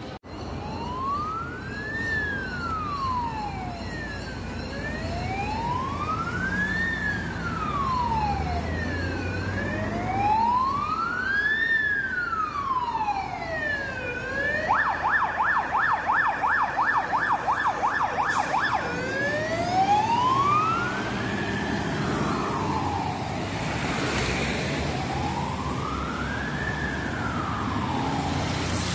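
Fire engine siren on a slow wail, rising and falling about every five seconds. About halfway through it switches to a fast yelp for about four seconds, then goes back to the wail, over the low rumble of the truck and traffic.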